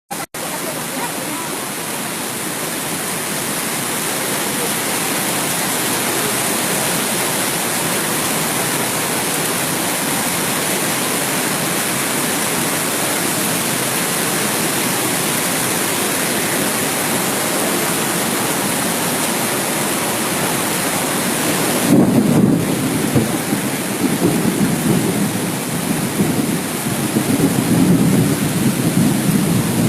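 Waterfall in flood: a steady, heavy rush of falling water. About two thirds of the way in, a louder, uneven low rumble joins it.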